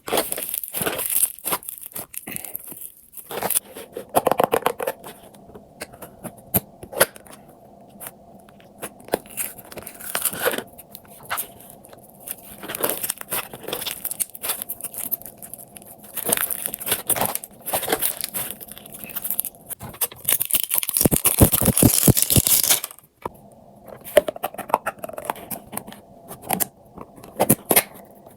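Hands squishing, stretching and poking slime, making irregular sticky clicks, pops and crackles. A denser, louder run of crackling comes about three quarters of the way through.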